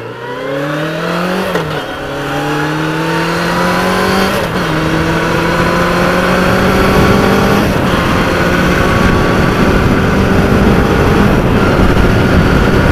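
Motorcycle engine accelerating hard through the gears. The pitch climbs, drops at upshifts about a second and a half and four and a half seconds in, then settles to a steadier, slowly rising note at highway speed. Wind noise builds with the speed.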